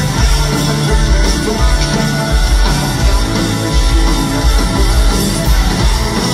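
Live punk rock band playing loud through a venue PA: electric guitars, bass and drums with a steady driving beat, and the lead singer singing into the microphone.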